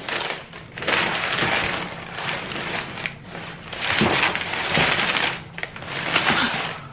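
Crumpled kraft packing paper crinkling and rustling as it is pulled by hand out of a shipping box, in several loud spells.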